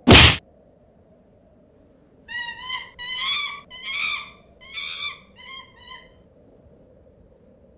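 A short, loud crash sound effect, then a run of six wavering, high-pitched animal-like cries starting about two seconds later, over a faint steady hum.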